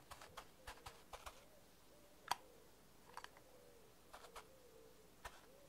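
Near silence with a few faint, scattered clicks, one a little louder about two seconds in, over a very faint wavering tone.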